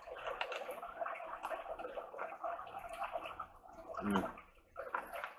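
Close-up chewing of a crunchy fried taco: irregular crunching and wet mouth noises, with a brief hummed 'mm' about four seconds in.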